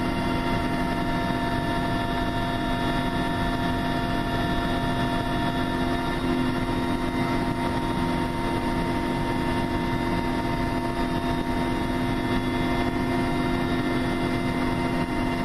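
Steady drone of an aircraft in flight heard inside its cabin: constant engine whine in several steady tones over a rushing hiss.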